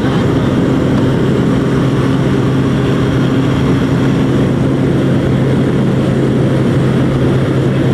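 Propeller aircraft engine running steadily at an even pitch, with a constant low hum under a loud rushing noise.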